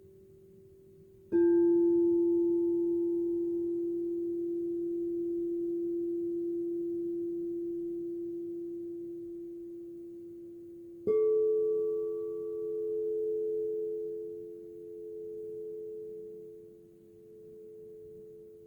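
Quartz crystal singing bowls struck twice, each ringing on as a long pure tone that fades slowly. The second bowl is higher-pitched, and its ring pulses in loudness while the first bowl's lower tone still sounds beneath it.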